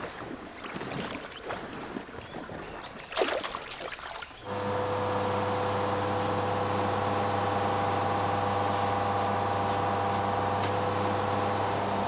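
Steady machine hum with several fixed tones, starting abruptly about four and a half seconds in. Before it comes quieter, irregular noise with one sharp rustle-like sound about three seconds in.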